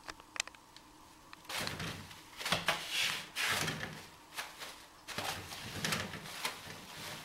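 Toilet paper rustling and the roll turning on its holder as a kitten paws and tugs at it, in a series of short scratchy bursts. There are a few light clicks near the start.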